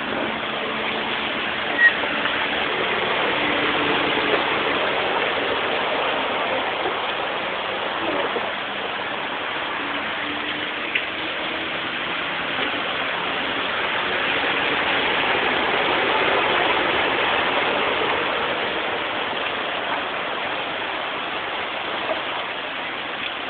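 Very heavy summer downpour: a steady hiss of pouring rain and rushing floodwater, with a brief knock about two seconds in.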